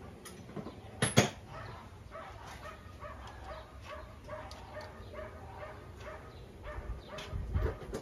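A dog barking in a quick, steady run of short barks, starting about two seconds in, with one sharp knock about a second in.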